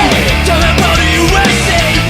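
Loud heavy rock music with distorted guitar, bass and a steady beat, with a bending lead line over it.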